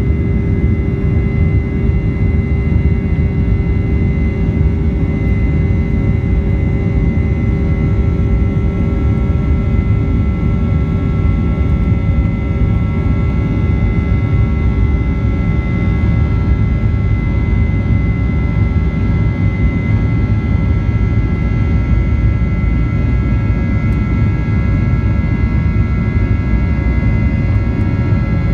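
Boeing 737-800's CFM56-7B jet engines running at high thrust during takeoff, heard from inside the cabin: a steady loud rumble with several constant whining tones over it.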